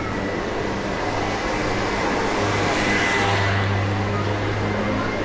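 Street traffic: a vehicle's engine hums steadily while a vehicle passes by, loudest about three seconds in.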